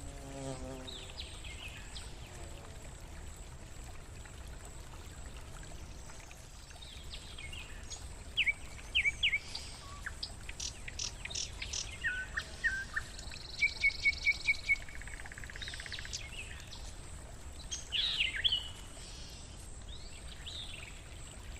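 Nightingale singing loud, varied phrases of whistles, rapid repeated notes and a buzzy trill, starting about a third of the way in and ending shortly before the end, over the steady gurgle of a forest stream. A bumblebee's buzz fades out about a second in.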